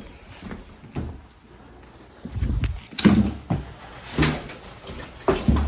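A series of knocks and thumps: low thuds about two seconds in, then several sharp clicks, roughly a second apart.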